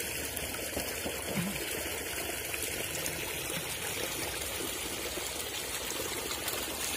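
Shallow muddy water running steadily through a narrow cut in a mud bank, a continuous trickling rush.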